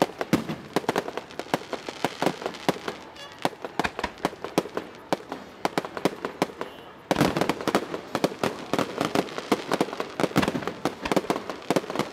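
Fireworks going off in a dense, rapid rattle of cracks and bangs, which suddenly grows louder and thicker a little over halfway through.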